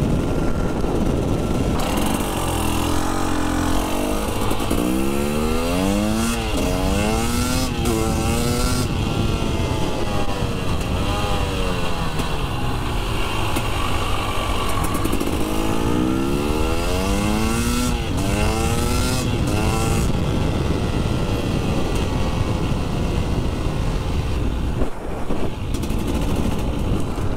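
New Husqvarna two-stroke motorcycle engine pulling through the gears: its note rises and drops back again and again with each shift over a steady rush of noise, then settles to a steady cruise for the last few seconds.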